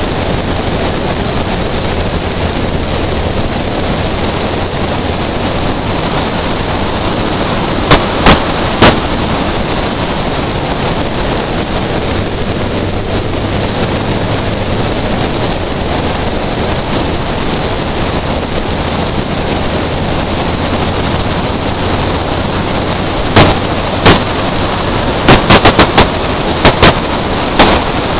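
Steady rushing wind noise on a microphone mounted on the bonnet of a moving car, loud throughout. Sharp cracks break through three times partway through and in a rapid cluster near the end.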